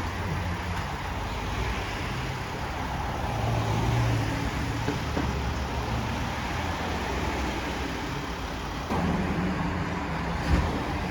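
A motor vehicle running steadily with road noise. The sound changes abruptly about nine seconds in, and there is a single sharp knock about ten and a half seconds in.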